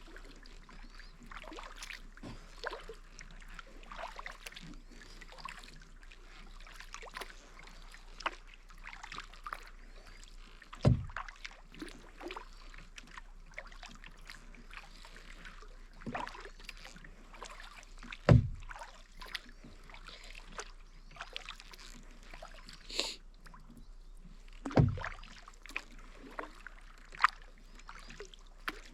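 Kayak paddling: the paddle blades dipping and splashing in the water with dripping and swishing strokes. Three dull thumps stand out, about a third of the way in, past the middle and near the end.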